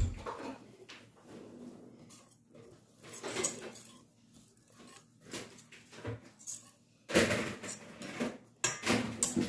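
Wire whisk clinking and scraping against a stainless steel bowl as crepe batter is stirred, in irregular strokes that grow louder about two-thirds of the way through.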